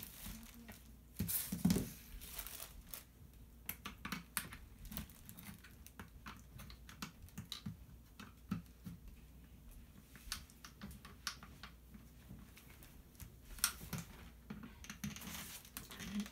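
Irregular plastic clicks, scrapes and snaps, with a few louder ones, as a screwdriver pries and pokes at the black plastic housing of a Samsung laser printer's toner cartridge to break it open.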